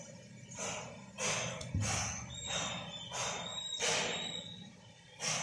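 A run of short breathy puffs close to the microphone, nearly two a second, like quick sniffing breaths.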